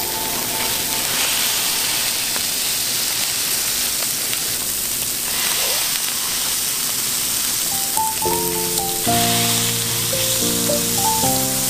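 Beef burger patties sizzling steadily on a hot flat-top griddle as they are smashed flat under a metal burger press. Background music stops just after the start and comes back in about eight seconds in.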